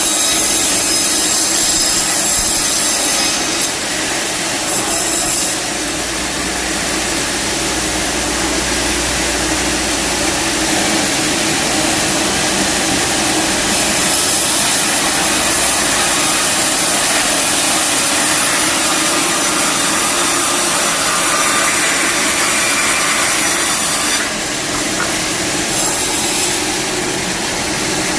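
A power saw running steadily while cutting lengthwise through wood to square up a timber, in one long continuous cut, with a steady motor hum under the sawing noise.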